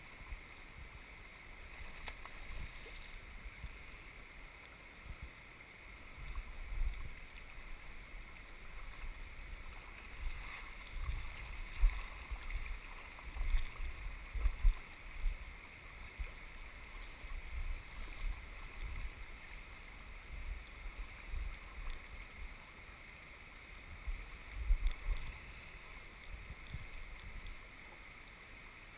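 Shallow river water rushing steadily over a gravel bar, with irregular low buffeting on the microphone that peaks several times.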